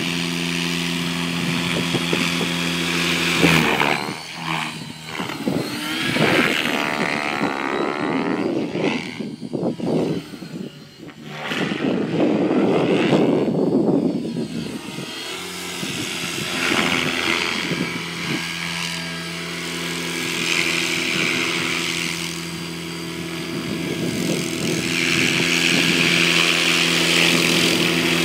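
Align T-Rex 600E Pro electric RC helicopter: a steady motor-and-rotor hum while it hovers low, which about three seconds in breaks into a wavering, gliding whine and blade whoosh as it climbs away and manoeuvres, then settles back to a steady hum as it comes back to hover over the pavement.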